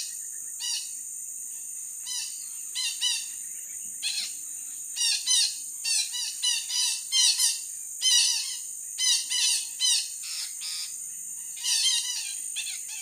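Red-breasted parakeets (betet) giving short, harsh calls in quick clusters, over a steady high-pitched insect drone.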